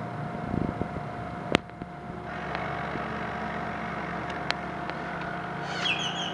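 Steady motor hum with a constant whine, as of a radio-controlled model boat running on the water. There is a sharp click about a second and a half in, and a short bird chirp near the end.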